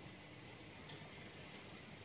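Near silence: faint room hiss.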